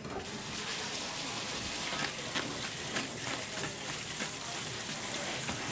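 Water from a hand-held hose spray nozzle rinsing seafood pieces in a plastic colander: a steady hiss of spray hitting the mesh and the food, starting just after the beginning, with a few faint ticks.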